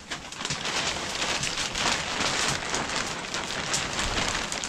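Thin plastic sheeting rustling and crinkling continuously as it is grabbed and lifted back by hand.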